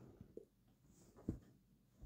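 Near silence: room tone, with two faint soft bumps, one about a third of a second in and another just past a second in.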